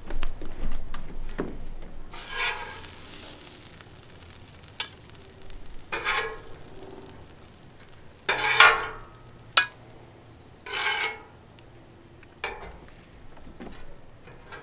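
Metal spatula scraping across a Blackstone flat-top griddle in about five separate strokes, the longest over a second, with a few light clicks between.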